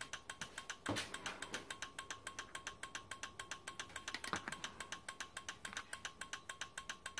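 Rapid, even clicking, about seven clicks a second, from the switching circuit pulsing a 12-volt test bulb on and off, over a faint steady whine. Two louder knocks, about a second in and again past the middle, come from multimeter test leads being handled.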